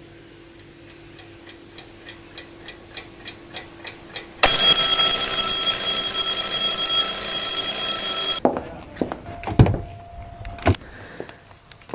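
Alarm clock sound effect: ticking at about three ticks a second, growing louder, then a loud alarm ring for about four seconds that cuts off abruptly. A few clicks and knocks at a car door follow near the end.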